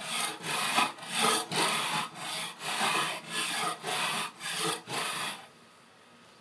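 Surform rasp drawn in repeated strokes along a laminated hickory-and-bamboo bow stave, shaving down wood and scraping off dried epoxy, about two strokes a second. The strokes stop about five seconds in.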